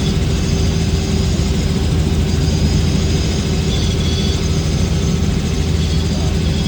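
Helicopter running in steady flight: a loud, even engine and rotor drone with a low hum.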